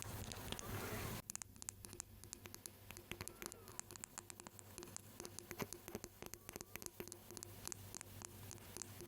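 Close-miked ASMR tapping and scratching: many quick, irregular light taps on a hard surface. A second of denser rustling at the start cuts off abruptly before the tapping.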